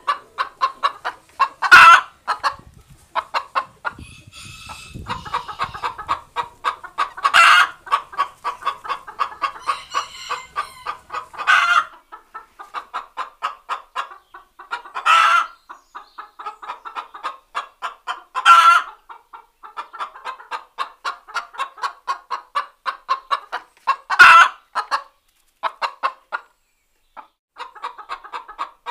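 A hen cackling its laying song: runs of rapid clucks, about five a second, broken by six loud drawn-out squawks, the call hens make around laying an egg. A brief low rustle comes about four seconds in.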